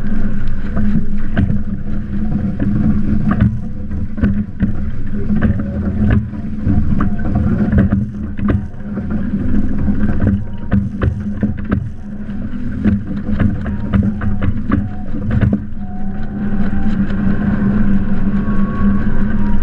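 Water rushing along the hull of a Windrider Rave trimaran under sail, with wind buffeting the boat-mounted camera's microphone in a loud, steady rumble. Frequent sharp ticks of spray hit the camera.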